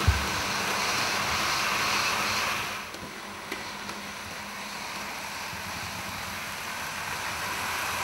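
Recorded full-size train sound played through a home cinema system, a steady rushing noise, cuts off about three seconds in. What is left is the quieter, steady running of 00 gauge model trains, with motors and wheels on the track. A low thump at the very start and a small click soon after the cut.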